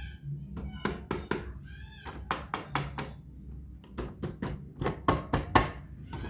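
Irregular knocks and clicks, with two short calls that fall in pitch, over a steady low hum.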